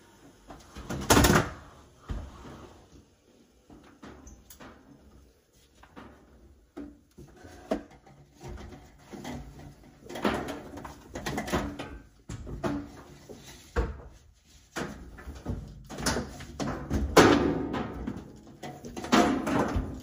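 Irregular knocks, scrapes and clatter of a clothes dryer being pulled out from the wall and handled, with a sharp loud knock about a second in and busier bumping later on.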